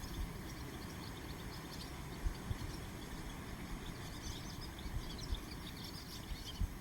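Swallows and sand martins twittering, many short high chirps that thicken about four seconds in, over wind rumbling and buffeting on the microphone.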